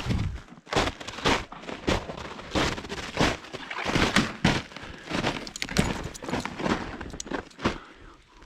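Footsteps crunching at a steady walking pace, a little under two steps a second, easing off near the end.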